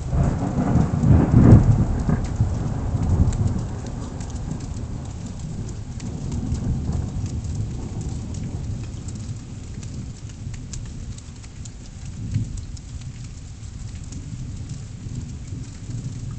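Thunder: a loud clap breaks right at the start, peaks about a second and a half in and rolls away over the next few seconds, with fainter rumbles later. Rain falls steadily throughout, with scattered pattering drops.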